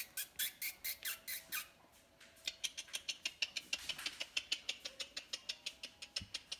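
Two-and-a-half-week-old Golden Mountain Doodle puppies squeaking rapidly and rhythmically, about five or six high-pitched squeaks a second, with a short pause about two seconds in.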